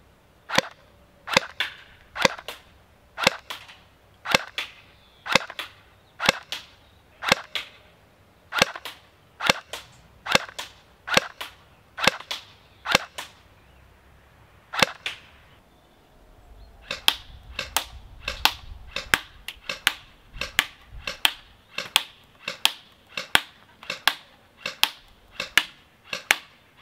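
CM126 M92 F electric airsoft pistol (AEP, 0.5 joule) firing 0.25 g BBs. It fires single sharp shots about once a second, then after a short pause faster shots about twice a second.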